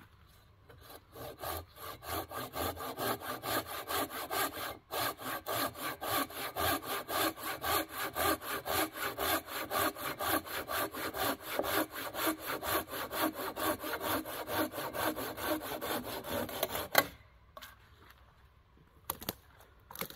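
Hand saw cutting through a dry, barkless log in quick, even strokes, about three a second. The sawing stops with a sharp crack about seventeen seconds in, followed by a few light knocks of wood near the end.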